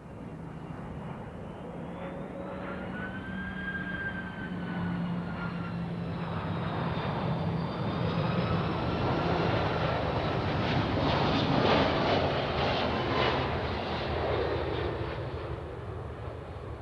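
Twin-engine Airbus A330-202 jet airliner on final approach, its engines whining as it passes. The noise swells, with a high whine that bends in pitch, peaks about three-quarters of the way through, then begins to fade as the aircraft reaches the runway.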